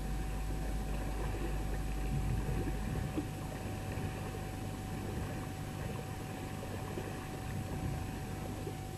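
A small outboard motor running steadily on a catamaran, a low even hum with wind and water noise around it.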